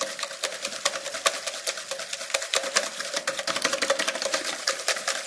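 Ghee and sugar being beaten together by hand in a bowl, the utensil clicking against the bowl in a rapid, even rhythm of several strokes a second as the fat and sugar are creamed.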